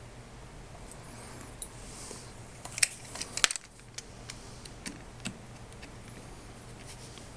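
Light metallic clicks and taps as a screwdriver works small factory screws out of a lever-action rifle's receiver. There is a quick cluster of sharper clicks about three seconds in and scattered single ticks after it.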